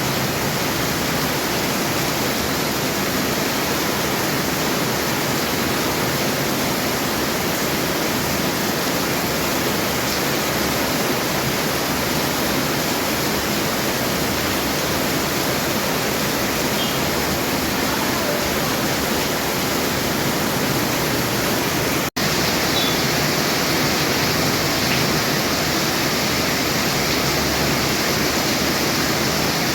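Heavy rain falling in a steady, dense hiss. It cuts out for an instant about three-quarters of the way through, where the recording is spliced, then carries on slightly brighter.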